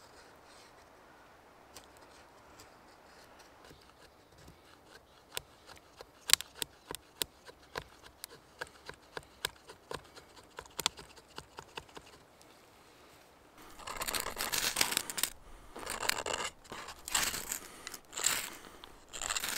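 A knife carving thin curls off a dry stick, with a short crisp click on each stroke about twice a second. About two-thirds through this gives way to a series of louder, harsh scrapes as a ferro rod is struck to throw sparks onto the shavings.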